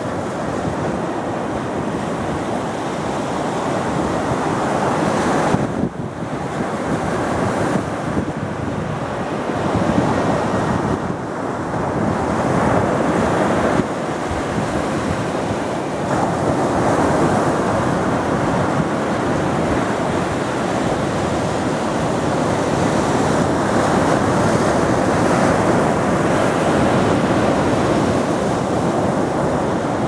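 Ocean surf breaking and washing up a sandy beach: a continuous rush that swells and eases as the waves come in, dipping briefly about six seconds in.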